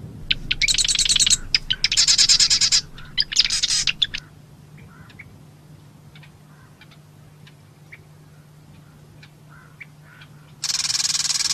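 Marsh wren singing: three rapid, rattling trills in quick succession in the first four seconds, then a few faint ticks, and another rattling trill starting near the end.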